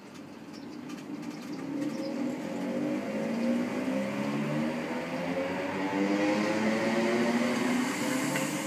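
Electric multiple-unit passenger train pulling away, its traction motors whining in several tones that rise steadily in pitch and grow louder as it accelerates.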